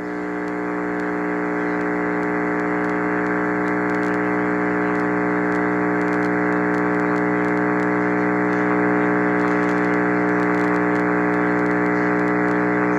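Steady electrical buzz on the radio audio: a low hum with many overtones that swells up over the first second or two, then holds level without a break.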